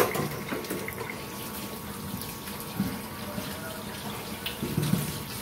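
Kitchen faucet running into a sink as mangoes are washed by hand under the stream, a steady rush of water with a few soft knocks.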